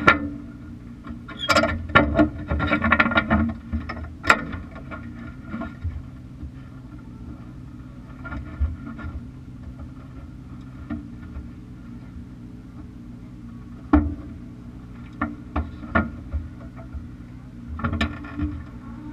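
Kart cross buggy's engine idling steadily, with irregular knocks and rattles from the chassis, loudest in a busy patch a couple of seconds in and in single sharp knocks later on.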